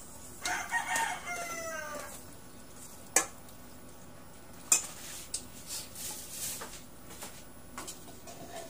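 A rooster crows once near the start: one call of about a second and a half whose pitch falls away at the end. After it, a metal skimmer ladle clinks sharply against the pan and bowl twice, then taps lightly a few more times while soup is scooped.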